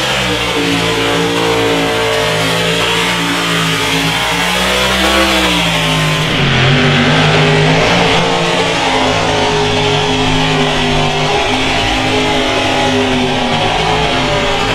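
Mega truck engines revving hard at high rpm as the trucks power through a mud pit, the pitch climbing and then dropping about five seconds in. A rock track with electric guitar plays over the engine sound, and the sound changes abruptly at a cut about six seconds in.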